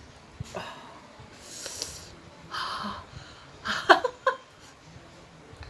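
A woman breathing in and out sharply with hissing breaths against the burn of very spicy food. About four seconds in comes a short cluster of louder, catching breath sounds.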